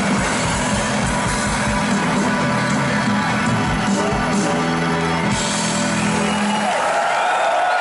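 Live band playing the closing bars of a song with a steady drum beat, then stopping about six and a half seconds in, leaving crowd whoops and cheers.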